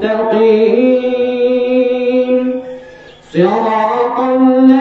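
An imam's melodious Quran recitation during prayer: one man's voice chanting in long held, ornamented notes. It breaks for a breath about two and a half seconds in and resumes a moment later.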